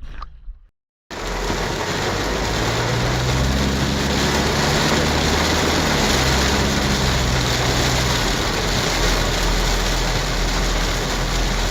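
A motor vehicle's engine running under heavy wind and road noise, starting abruptly about a second in. The engine note shifts in pitch a few times midway and then holds steady.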